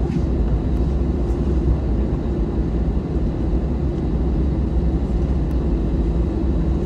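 Steady low rumble of a jet airliner's cabin as the plane rolls off the runway after landing, its engines at idle.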